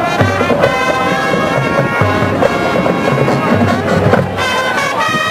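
Marching band playing a Latin-style number, saxophones and brass carrying the tune over a steady low beat.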